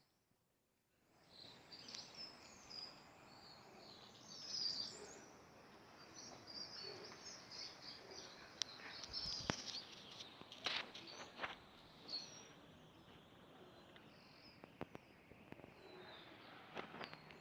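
Small birds chirping softly in many short high calls, with a few sharp clicks or taps in the middle.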